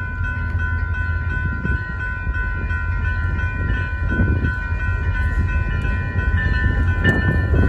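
Railroad crossing bell ringing steadily over a low rumble as a Union Pacific maintenance-of-way weed sprayer train approaches the crossing, the rumble growing louder near the end.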